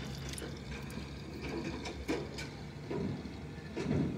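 Irregular clicks and small rattles as a muddy fishing net is shaken out and picked clean by hand, small snail shells and grit knocking together and dropping onto the mud; the louder knocks come about two, three and four seconds in.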